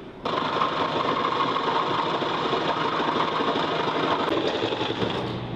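Porter-Cable jigsaw starting suddenly about a quarter second in and running steadily as its blade cuts through thin plywood deck along a marked curve.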